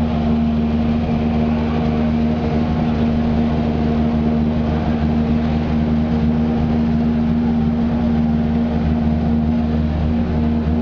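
Subaru Impreza WRC rally car's turbocharged 2.0-litre flat-four engine idling steadily, its pitch unchanging.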